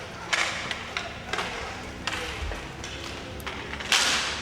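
Sharp clacks and knocks of inline hockey play: sticks striking the puck and the puck hitting the rink boards, several irregular hits with the loudest about four seconds in.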